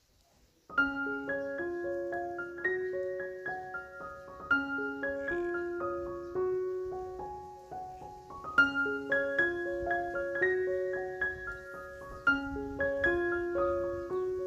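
Background music: a light piano melody that comes in about a second in, a short phrase of plucked-sounding notes repeating roughly every four seconds.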